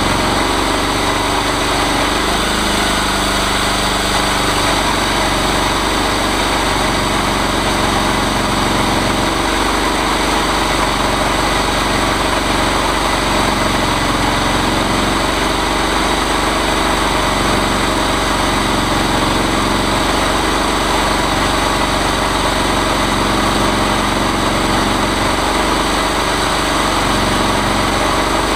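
The engine of a chainsaw mill running steadily, its pitch wavering slightly from time to time.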